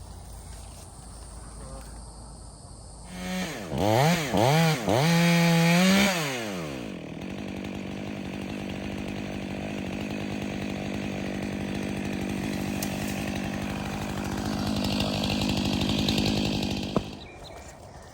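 Stihl MS 500i fuel-injected two-stroke chainsaw, revved in three or four quick blips about three seconds in, then held at steady full throttle cutting through a tree stump. It comes off throttle about a second before the end.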